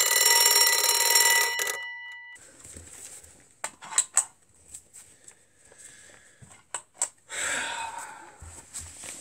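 An alarm bell rings loudly and steadily for about two seconds, then stops with a short ring-out. A few sharp clicks and a brief rustle follow.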